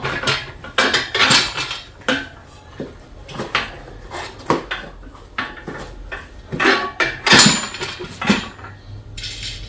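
Steel tire irons clinking and clanking against a dirt bike wheel rim in irregular knocks while the tire bead is worked over the rim lock; the loudest clank comes about seven seconds in.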